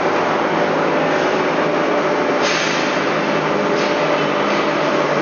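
BOMAR metal-cutting band saw running with a steady mechanical drone. About two and a half seconds in, a brighter hiss joins it.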